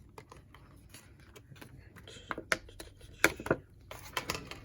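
Scattered light clicks and taps of a trading card box's packaging being handled, with a cluster of sharper clicks in the second half.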